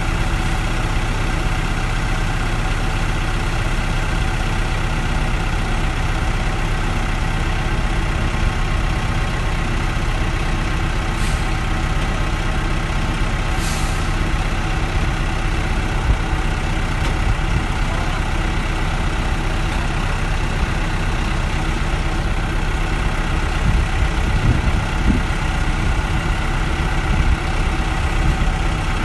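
Road sweeper truck's engine running steadily at an even speed while the truck empties itself, with two short high hisses about eleven and fourteen seconds in.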